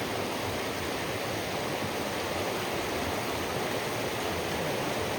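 Steady rush of a creek flowing over rocks.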